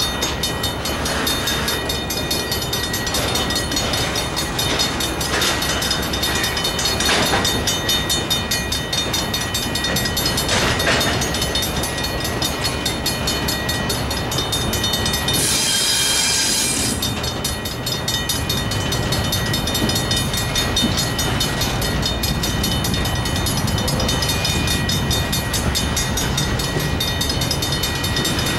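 Double-stack intermodal well cars rolling past a grade crossing, wheels clicking over the rail joints, while the crossing's Safetran mechanical bells ring steadily. A brief shrill burst stands out about fifteen seconds in and lasts a second or so.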